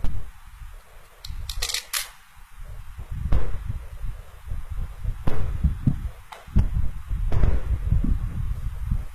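Handling sounds of a felt quiet book being opened and its page turned: a series of sharp clicks and knocks over a low rumble.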